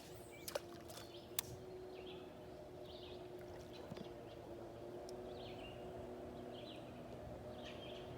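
Faint steady drone of a distant motorboat engine, with small birds chirping repeatedly over it and two sharp clicks in the first second and a half.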